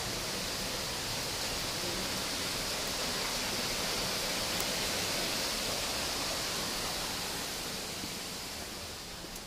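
Steady rush of the Düden Waterfall, heard from the cave passage behind the falls. It fades a little near the end.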